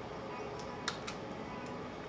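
A few short, sharp metallic clicks, the loudest about a second in and a second one just after, as hand tin snips and small cut strips of sheet metal are handled. They sit over a faint steady background.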